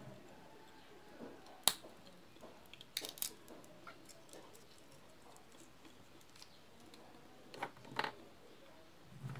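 Boiled peanut shells being split open by hand: a handful of sharp cracks and soft crackles, the loudest about two seconds in, with a couple more around three seconds and again near eight seconds.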